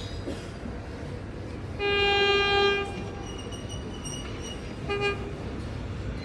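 X'Trapolis electric train's horn sounding its low note: one blast of about a second, then a short toot about two seconds later, over the steady rumble of the train passing at speed.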